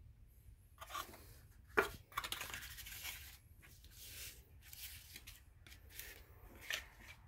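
Thin cardboard perfume carton being unfolded and flattened by hand: crackling, rustling and scraping of the card in several bursts, the sharpest about two seconds in.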